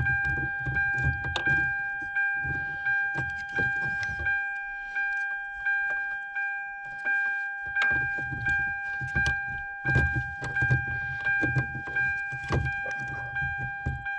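The car's electronic warning chime repeats steadily, a few times a second, while plastic and metal parts click and rattle as the new ignition key switch is handled and fitted. The handling noise stops for a few seconds in the middle and then resumes.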